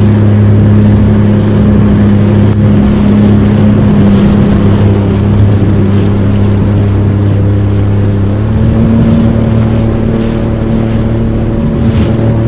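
Jet ski engine running steadily at cruising speed under way, with rushing water around the hull. The engine note steps up slightly about eight seconds in.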